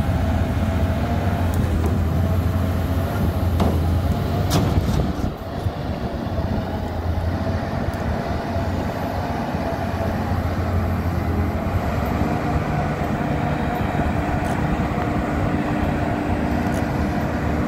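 Cat 320D forestry excavator's six-cylinder C6.4 diesel engine running steadily under hydraulic load while the boom and Waratah processor head are moved. Two sharp knocks come around four and five seconds in.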